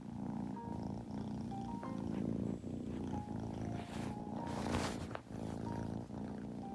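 British Shorthair kitten purring, a steady, finely pulsing rumble, with a brief louder rush of noise about four seconds in. Soft background music with short bell-like notes plays along.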